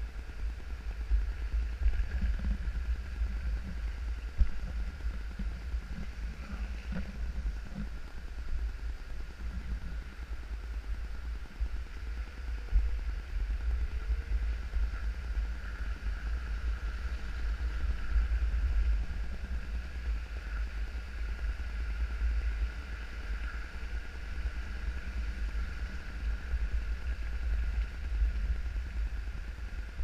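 Wind buffeting the microphone of a camera riding along a road: a constant gusty low rumble, with a faint steady whine underneath.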